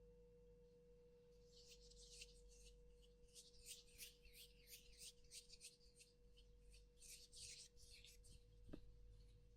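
Close-up ASMR friction sounds: quick, scratchy rubbing strokes starting about a second and a half in, over the faint, steady lingering ring of a tuning fork. A soft tap near the end.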